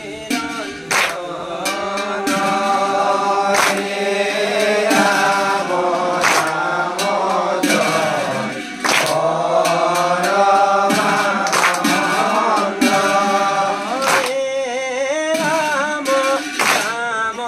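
Assamese nam-prasanga devotional singing: voices chanting a melodic hymn line, with sharp strikes keeping time about every second and a half.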